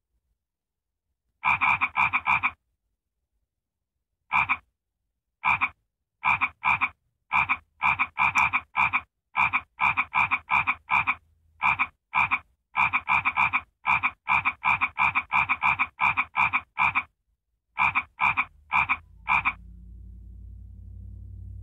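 A short frog croak sound effect repeated many times in quick, uneven runs, each croak the same as the last, with dead silence between them. Near the end the croaks stop and a low rumble comes in.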